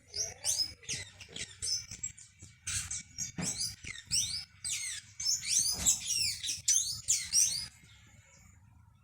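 Birds chirping: a dense run of quick, high chirps and short sweeping notes that thins out near the end.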